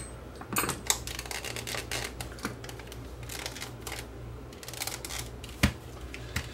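Plastic clock case handled and turned over in the hands, giving a run of small clicks and taps, with one sharper click about two-thirds of the way through.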